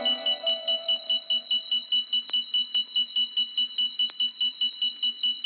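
Electronic dance music in a breakdown. A sustained synth chord fades out over the first second or two, leaving a fast, repeating, high bell-like synth pattern over a soft low pulse, with no full beat.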